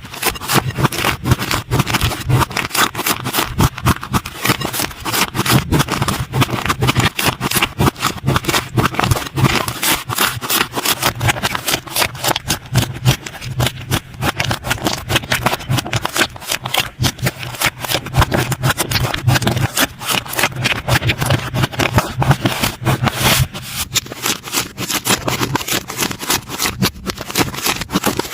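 Slime being squeezed and poked by hand, giving a dense run of small crackling clicks and pops.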